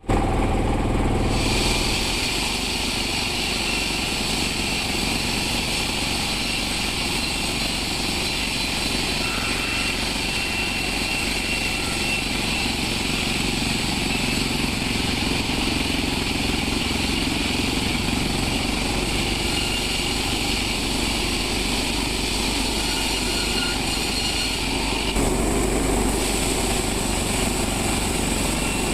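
Sawmill machinery running steadily: a continuous engine-like drone, with a higher whine that joins about a second in and drops out near the end.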